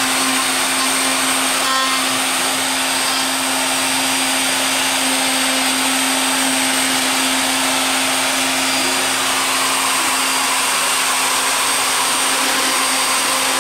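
Wood router spindle on a home-built CNC machine running at full speed while its bit cuts lettering into a pine board: a steady motor hum and high whine under an even hiss, unchanging in level.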